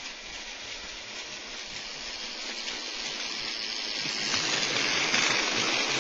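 Heavy rain pouring down in a steady rush that swells louder about four seconds in.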